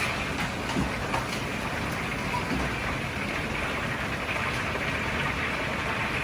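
Steady rushing noise of a commercial Chinese kitchen's wok range running, with a few faint clicks.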